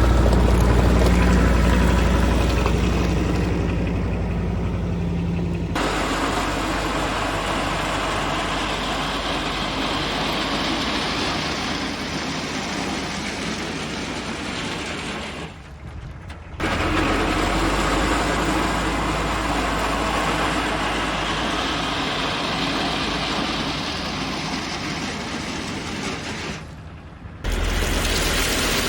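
Diesel heavy-equipment engine running, in several clips whose sound changes abruptly about a third and two-thirds of the way through and near the end.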